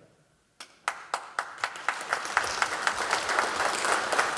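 Audience applauding: a few scattered claps about half a second in, quickly filling out into steady clapping.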